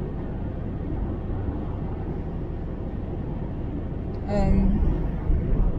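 Steady road and engine noise inside the cabin of a moving car. A brief voice sound comes about four seconds in.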